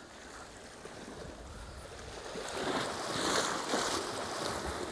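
Sea waves washing against a rocky shore, with wind. The wash swells up about two and a half seconds in.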